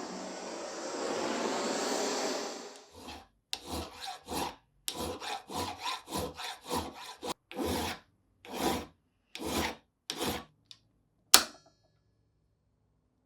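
Hand scraping on the rusty steel of an old bench vise. It starts as nearly three seconds of continuous rough rubbing, then turns into a run of short back-and-forth strokes, about one to two a second. Near the end comes a single sharp metallic knock.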